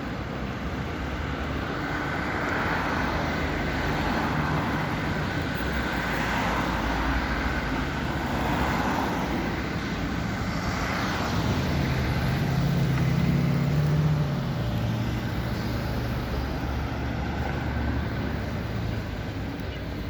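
Road traffic: a steady wash of passing vehicles, swelling and fading as each one goes by. A heavier vehicle's low engine hum is the loudest part, about two-thirds of the way in.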